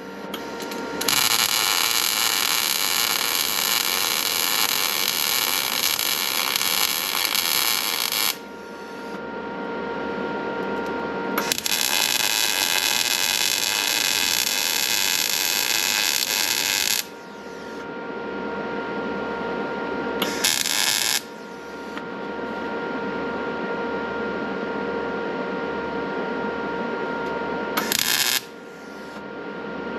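Arc welding on a steel snowblower frame: the arc crackles and sizzles in four runs, two long beads of several seconds each and two short tacks near the middle and the end. Between the welds a steady high whine continues.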